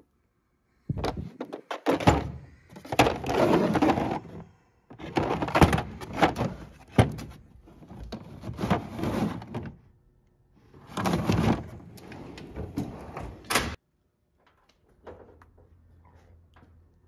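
Hard plastic tool cases being shifted, lifted and knocked together in a metal toolbox drawer: several bursts of scraping and rattling with clunks, ending in a sharp click, then only faint handling.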